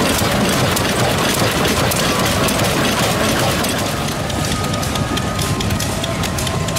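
Several vintage stationary engines running together: a steady mechanical clatter with many quick ticks and exhaust beats.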